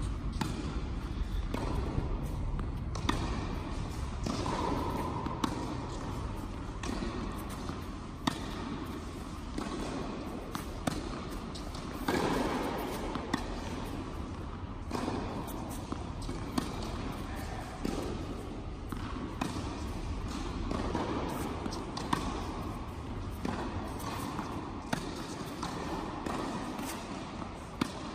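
Tennis rally on an indoor hard court: sharp racket strikes and ball bounces every second or two, over a steady low rumble.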